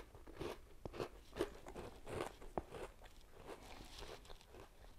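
A person chewing a crunchy butter cookie: a run of faint, irregular crunches, thinning out over the last second or two.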